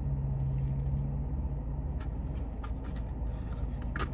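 Steady low hum of a parked car running, heard from inside the cabin, with a few small clicks and taps near the end.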